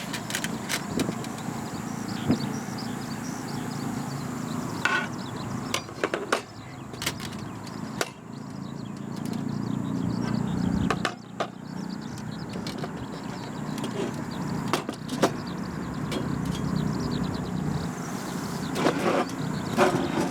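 Firewood being handled and broken: scattered wooden knocks and snaps, with small clusters about five seconds in and near the end, over a steady low background noise.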